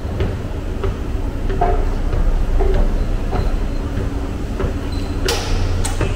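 Subway train running with a steady low rumble and light regular clicks, and a short loud hiss near the end.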